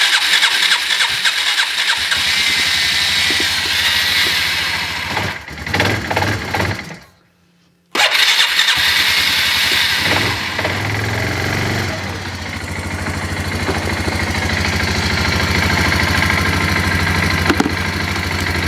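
Arctic Cat ATV engine being cold-started off a jump starter after sitting for months: it turns over and catches, surges unevenly around five to seven seconds in, cuts out briefly, then runs steadily at idle.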